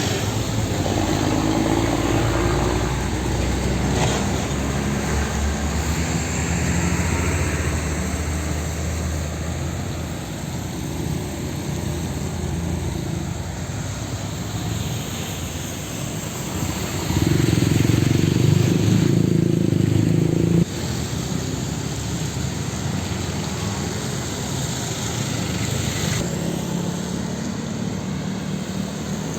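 Road traffic with motor vehicle engines running and passing. About seventeen seconds in, a louder, low engine drone rises and then cuts off abruptly a few seconds later. The sound changes suddenly several times, as at cuts between shots.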